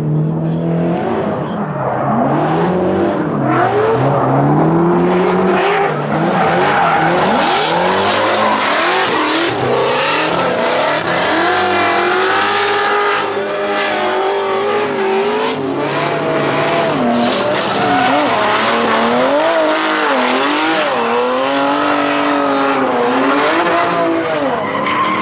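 Two drift cars in a tandem run, their engines revving up and down through the slides over a constant screech of spinning tyres.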